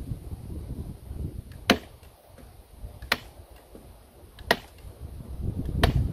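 Four sharp clicks at an even pace, about one every second and a half, over a low rumble of wind on the microphone that grows louder near the end.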